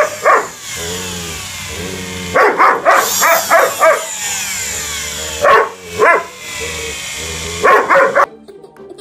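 Husky barking in several bursts of quick, sharp barks, with lower drawn-out vocalising between the bursts.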